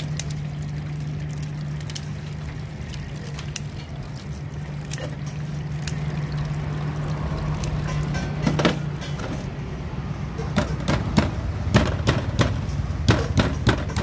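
Tap water pouring into a stainless steel sink while a blue swimmer crab is cleaned under it, over a steady low hum that stops about nine seconds in. From about eight seconds on come many sharp clicks and knocks of the crab shell being handled and scrubbed at the sink.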